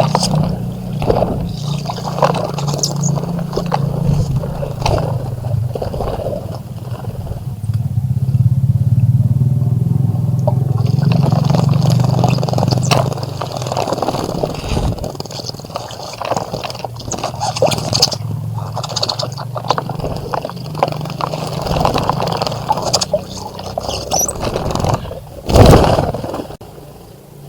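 Birds splashing in a bird bath, many short scratchy splashes, over a steady low engine drone that fades out about halfway through. A loud brief rush of noise comes near the end.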